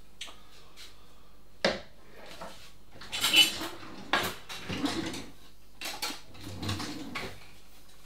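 Metal kitchen utensils clattering and clinking as a hand whisk is put away and a spatula is taken from a drawer. There is one sharp knock a little under two seconds in, then an uneven run of clatters and clinks through the middle and latter part.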